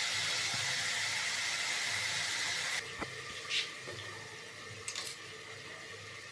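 Cauliflower and potato filling sizzling in a frying pan. About three seconds in, a lid goes on with a click and the sizzle drops to a quieter, muffled hiss.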